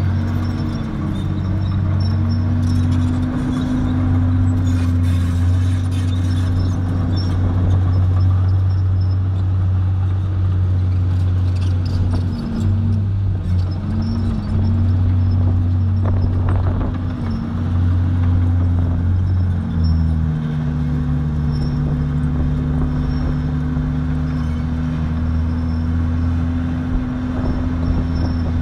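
Komatsu crawler dozer's diesel engine running steadily under work, its pitch sagging briefly a few times as the engine takes load while the blade pushes soil.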